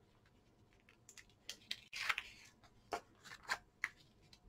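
Faint crinkles and ticks of cardstock and transparent vellum paper being handled and pressed down, a handful of short sounds starting about a second in.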